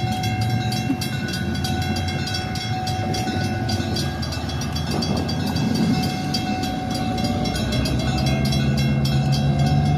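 EMD F7 diesel locomotive's two-stroke 567 engine running, a steady low rumble that grows louder over the last few seconds as the engine revs up.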